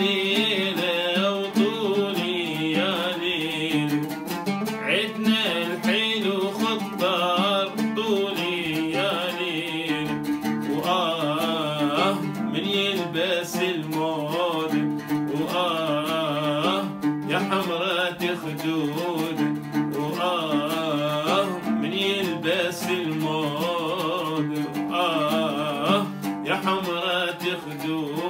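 An oud played with a plectrum accompanies a man singing an Iraqi folk song, his voice wavering in long, bending melodic lines over the plucked notes.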